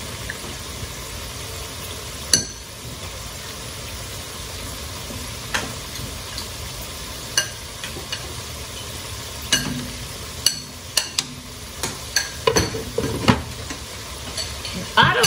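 Chips frying in hot oil: a steady sizzle with scattered sharp clicks and taps, which come more often in the last few seconds.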